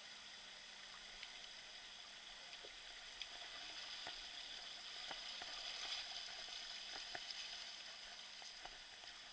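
Faint steady hiss of running water with scattered small clicks and splashes, swelling slightly around the middle.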